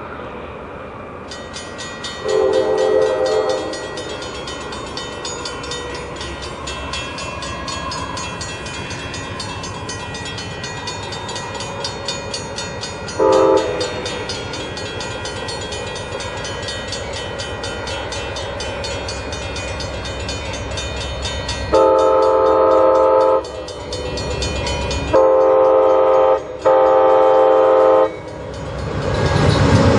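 GE P42 Genesis diesel locomotive's air horn sounding for a grade crossing: a long blast, a short one, then three more long blasts close together. A rapid crossing bell rings throughout, and near the end the locomotive's engine and wheels grow loud as it reaches the crossing.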